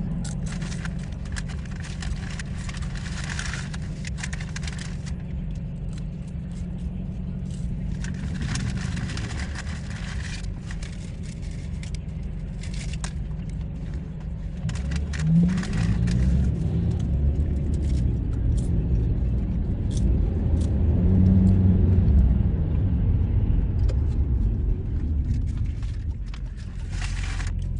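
Car cabin noise while driving: a steady low engine and road rumble that gets louder about halfway through as the car speeds up, with the engine pitch rising twice. Light rustling and small clicks in the first half.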